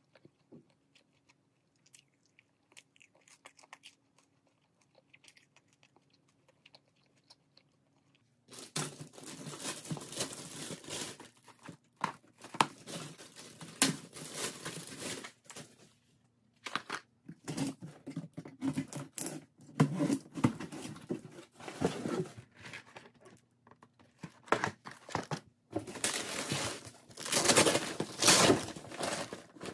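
Faint chewing of fried chicken for the first few seconds, then loud rustling and crinkling of plastic delivery bags being handled and unpacked, in bursts with short pauses. It is loudest near the end, as the flap of an insulated cooler bag is pulled open.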